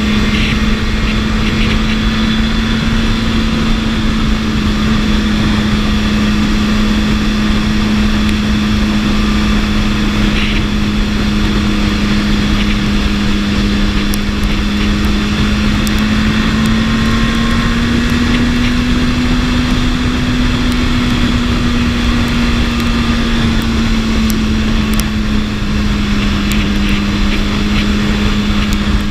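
BMW S1000RR's inline-four engine running at a steady cruising speed. Its note rises slightly about two-thirds of the way through, then settles back, over a steady rush of noise.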